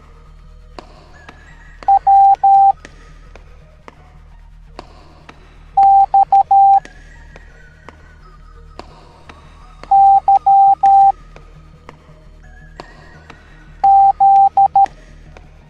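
Morse code beeps: a single steady tone keyed in short and long beeps, in four letter groups about four seconds apart. The groups read W, X, Y, Z (·−− −··− −·−− −−··), over quiet background music.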